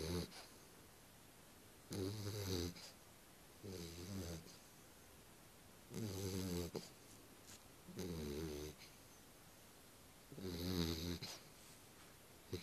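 Sleeping dog snoring, a rasping snore about every two seconds, each lasting under a second.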